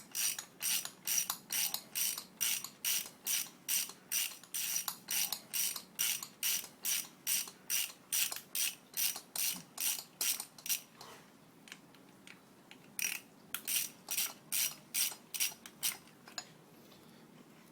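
Ratchet wrench clicking in short, even back-swings, about three a second, as the brake pad pins are backed out of a motorcycle brake caliper. It stops about eleven seconds in, then resumes for a few more seconds.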